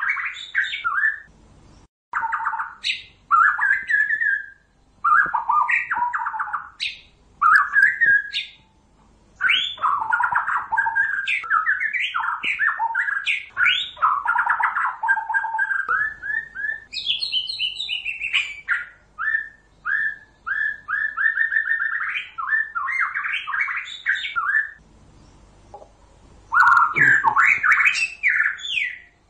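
White-rumped shama singing: fast runs of varied whistled and chattering phrases, broken by brief pauses every few seconds.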